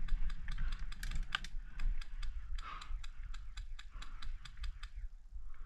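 Rapid, irregular series of sharp clicks, about three to four a second with short gaps: airsoft guns firing.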